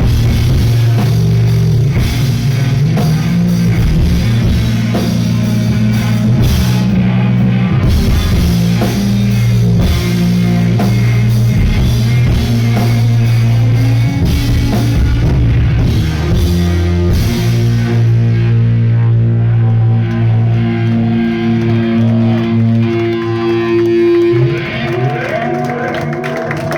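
Rock band playing live: loud distorted electric guitars over drums. Roughly two-thirds of the way through the cymbals and drums drop out, leaving held guitar notes ringing, and one note glides upward near the end as the song closes.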